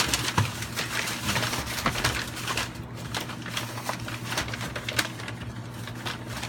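American Staffordshire bully puppies tearing and crumpling newspaper, a fast, irregular run of paper crackles and rips, with a few short low growls near the start.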